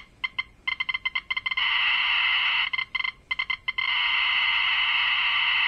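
Ludlum Model 2 rate meter's audio speaker clicking with the counts from a homemade alpha-beta-gamma scintillation probe as an americium-241 source is held to its window: irregular clicks and quick runs of clicks that twice merge into a steady buzz, the second time for about two seconds. The buzz is the alpha count rate from the americium-241 running so high that the meter pegs.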